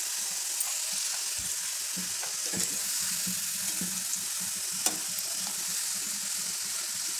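Chegodi dough rings sizzling steadily as they deep-fry in hot oil in a metal kadai, stirred with a spoon that knocks lightly against the pan, with one sharper click about five seconds in.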